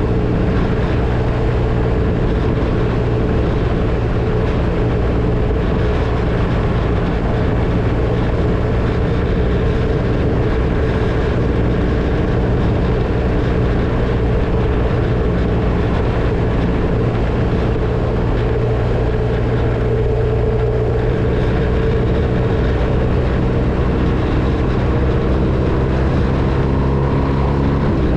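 BMW R1250RT's boxer-twin engine running steadily at cruising speed, its engine note rising near the end.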